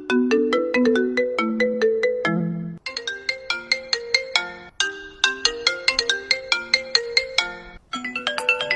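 iPhone ringtones playing in turn, each a quick melody of short chiming notes. One ringtone ends about three seconds in. A second one plays through twice, and a third begins near the end.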